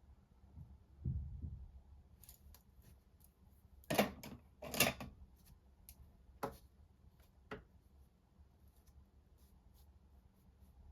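Study materials handled on a desk: a dull low thump about a second in, then a few short, sharp scraping clicks, the two loudest about four and five seconds in and two fainter ones after.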